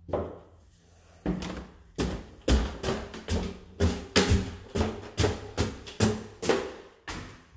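Footsteps climbing bare wooden stairs: a run of knocking footfalls, slow for the first couple of steps and then about two to three a second.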